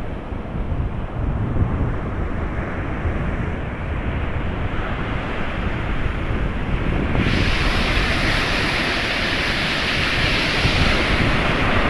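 Sea surf washing on the shore, with wind rumbling on the microphone. About seven seconds in, a louder, brighter hiss of a breaking wave rushes in and holds for several seconds.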